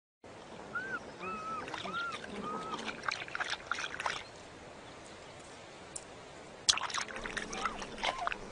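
Cheetah chirping: about five short, high, arched calls in the first three seconds, then crackling rustles and a few more chirps near the end.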